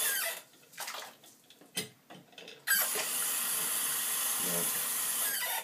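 Bathroom sink tap running, shut off just after the start; a few light knocks in the quiet, then the tap turned back on with a sudden gush about halfway through and running steadily until it is shut off again.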